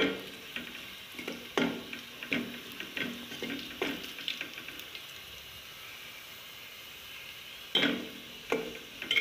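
A metal spoon scraping and clinking against a small aluminium pot as food is stirred in it, with a steady frying sizzle underneath. The stirring strokes come about every half second for the first four seconds, stop for a few seconds, and start again near the end.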